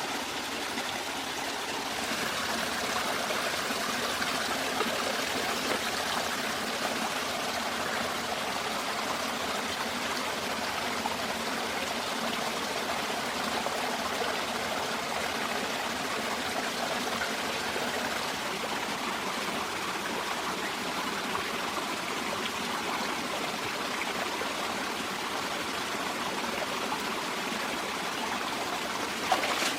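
Stream water flowing and trickling steadily, with one sharp click near the end.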